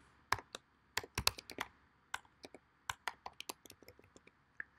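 Typing on a computer keyboard: sharp key clicks in quick, irregular runs with short pauses between them.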